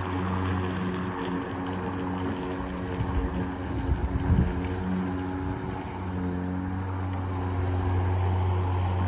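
Ryobi 20-inch 40-volt brushless battery lawn mower running, its motor and blade giving a steady hum. A cluster of low knocks and bumps comes a little past the middle.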